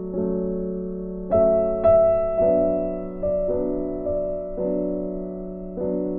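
Background music: gentle piano playing slow sustained chords, with a new note or chord struck every half second to a second.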